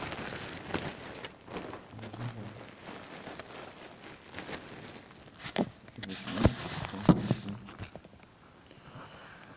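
Rustling and handling noise as a phone is moved about against clothing, with three sharp knocks in the second half.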